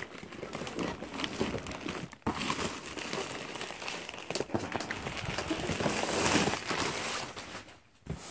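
Packaging being handled and pulled away from a boxed stand, crinkling and rustling steadily with a brief pause about two seconds in and another near the end.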